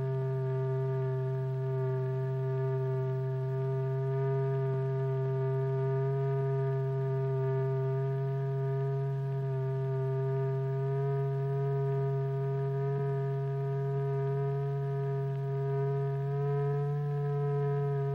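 Sustained electronic tone, the note that drives a vibrating membrane in a cymatics experiment. It is a loud steady low hum with a higher tone and its overtones above it, and the pitch rises slightly near the end.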